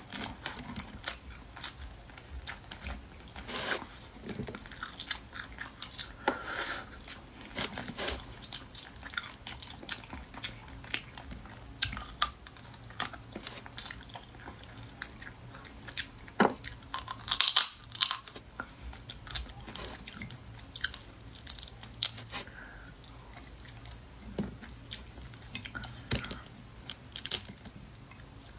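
Close-miked chewing of cooked lobster meat, mixed with irregular sharp clicks and crackles of shell being cracked and peeled by hand. A cluster of louder clicks comes about two-thirds of the way through.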